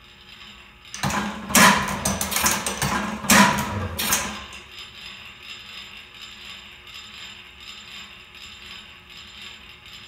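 Schleicher Bros atmospheric Otto & Langen free-piston engine taking one working stroke: a loud burst of rattling clatter lasting about three seconds, starting about a second in, with two loudest moments. It then runs quietly on its flywheel without firing, as its hit-and-miss governor skips firings.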